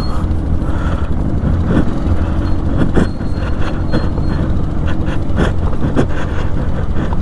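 Off-road motorcycle running slowly over rough ground: a steady low engine rumble with irregular knocks and rattles from the bike, spaced about half a second to a second apart.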